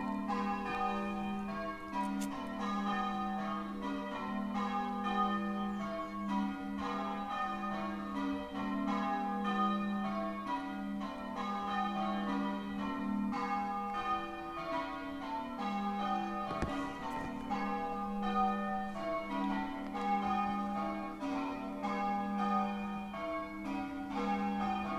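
Church tower bells being rung in changes: a continuous, even succession of overlapping bell strikes, each note ringing on under the next.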